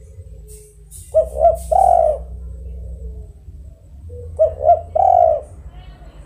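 Spotted dove (tekukur) cooing: two phrases about three seconds apart, each of two short notes followed by one longer coo.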